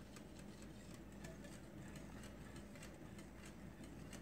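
Wire whisk ticking faintly against the side of a glass mixing bowl as it stirs a thin egg-and-cream mixture, a few light, regular ticks a second.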